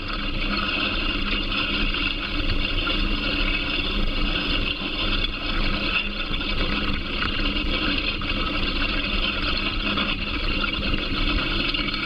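New Holland tractor's diesel engine running steadily under load while it pulls a tillage implement through the soil, heard from the implement behind the tractor, with a constant low hum.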